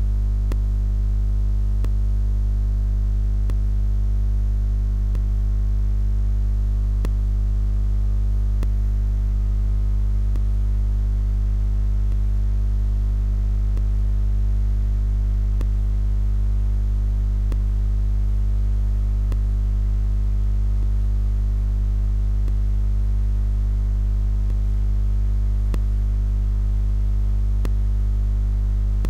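Steady electrical mains hum: a loud low buzz with a stack of evenly spaced overtones that never changes, and faint scattered ticks now and then.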